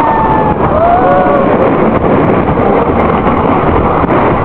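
Wooden roller coaster train running at speed over its wooden track, a loud continuous rumble and rattle mixed with heavy wind buffeting the microphone. Riders' voices cry out twice in the first second and a half.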